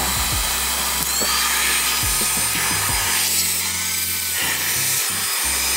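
SANSUI cordless handheld vacuum cleaner running steadily, its crevice nozzle drawn along a car seat.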